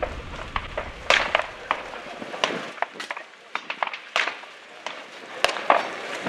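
Scattered gunshots from many guns firing on an outdoor range. Sharp cracks come irregularly, often several in a second, some close together and some overlapping.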